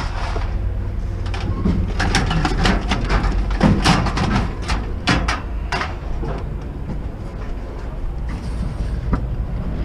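A vehicle's steady low engine rumble, with a string of sharp knocks and rattles in the first half.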